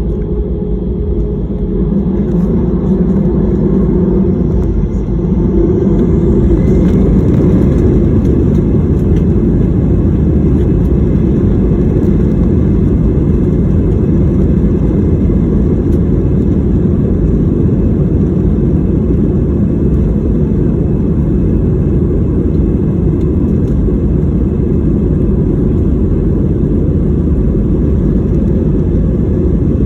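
Jet airliner taking off: the engines run up to a louder, steadier noise about five to seven seconds in, then hold a constant heavy rumble through the takeoff.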